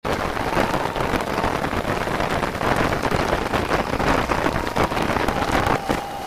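FDM 3D printer at work, played back at high speed: a dense hiss of rapid clicks and chatter with brief pitched whines.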